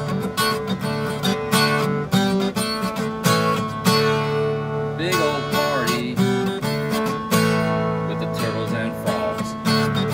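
Acoustic guitar strummed in a steady rhythm, an instrumental passage with ringing chords; the strumming lightens for a moment around four to five seconds in.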